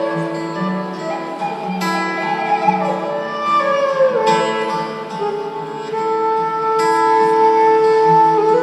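Live instrumental music from a gamelan fusion ensemble: held melodic notes with a falling slide near the middle, and a bright struck accent about every two and a half seconds.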